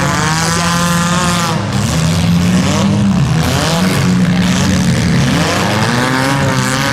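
Several compact front-wheel-drive demolition derby cars' engines revving together, their pitch rising and falling over and over as the cars are driven in the pit.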